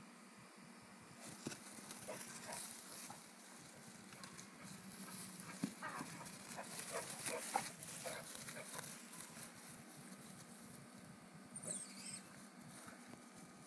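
Bullmastiff puppy making short vocal sounds in play, several in quick succession around the middle.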